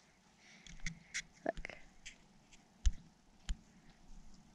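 Scattered light clicks and taps, with two dull thumps about three and three and a half seconds in, and a single short spoken "look" near the middle.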